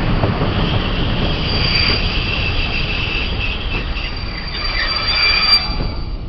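Passenger train running on curved track as it slows into a halt: a steady rumble of wheels on rail, with high-pitched squealing in several tones starting about a second and a half in and dying away near the end as the train nearly stops.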